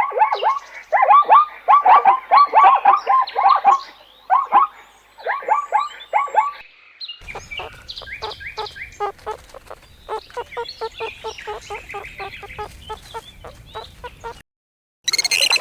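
Geese honking in quick series of short calls for about seven seconds. After a cut comes a quieter, fast run of short repeated calls from another animal over background hiss. A brief silence follows, then a new high-pitched call starts near the end.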